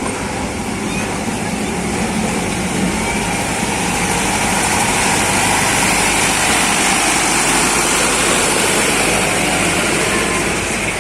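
Zoo's ride-on miniature train running: a steady engine-and-running noise that grows louder over the first few seconds, then holds.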